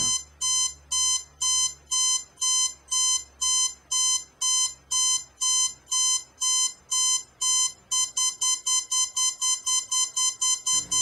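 Digital alarm clock going off, a high electronic beep repeating about twice a second, then speeding up to about four beeps a second some eight seconds in.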